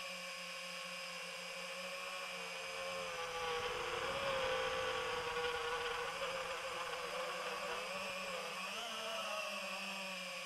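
Quadcopter drone motors and propellers buzzing with a steady high whine whose pitch drifts up and down as the throttle changes. It grows louder and rougher for a few seconds near the middle.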